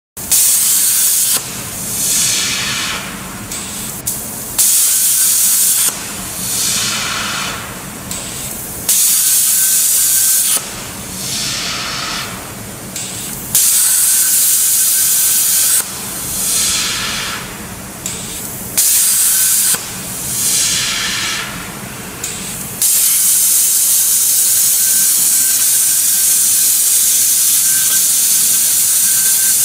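Kjellberg CNC plasma cutting torch cutting sheet metal, its arc and gas jet hissing loudly. It cuts in short bursts of about a second and a half, with quieter gas hiss swelling and fading between them as it moves from hole to hole. About two-thirds of the way in, the hiss runs on unbroken through a longer cut.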